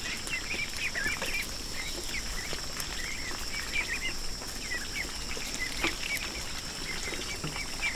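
Birds chirping: many short, quick calls scattered throughout, over a steady high-pitched whine.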